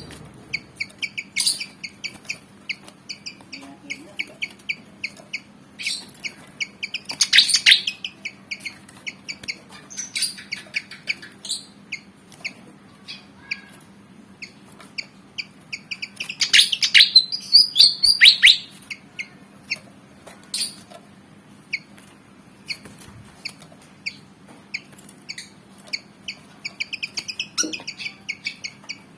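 A kipasan (fantail) calling over and over in quick, sharp chirps, breaking twice into louder, denser chattering: once about a quarter of the way in and once a little past the middle. The bird is presented as riled up and eager to fight.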